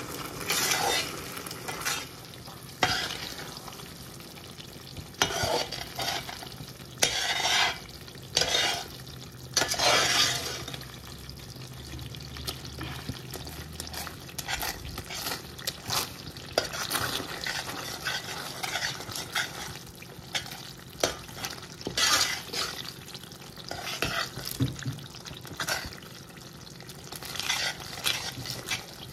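Slotted stainless-steel spoon stirring a boiling tender-coconut halwa mixture in a steel pot: irregular scrapes of metal against the pot over a steady bubbling sizzle.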